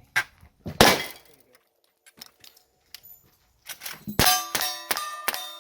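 Gunfire on a cowboy action shooting stage. A single shot comes about a second in. From about four seconds in, a quick string of shots follows, roughly three to four a second, each ringing a steel target with a metallic clang.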